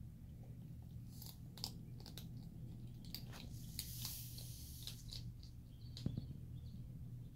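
Skunks crunching and chewing dry kibble, a quick irregular run of small crunches. A single sharp knock about six seconds in.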